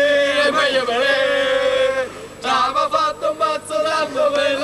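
Several young men's voices chanting loudly together: long held, wavering notes for about two seconds, then shorter shouted syllables.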